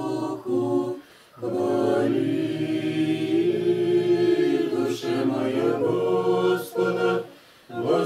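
Unaccompanied Orthodox liturgical chant sung by a few voices, in long held notes, broken by two short pauses for breath: about a second in and near the end.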